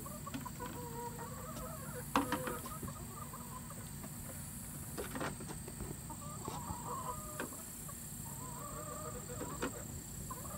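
Laying hens clucking, several drawn-out wavering calls, with a few sharp knocks, the loudest about two seconds in.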